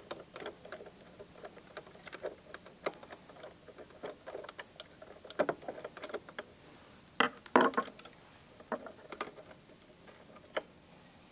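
Irregular light clicks, taps and scrapes of a large screwdriver turning out the upper knife retaining screw of a Pfaff Hobbylock serger, with a few louder clicks about seven seconds in.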